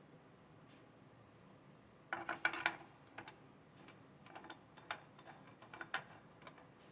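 Light clicks and clatter of small chainsaw parts and tools being handled: a quick run of clicks about two seconds in, then scattered single clicks.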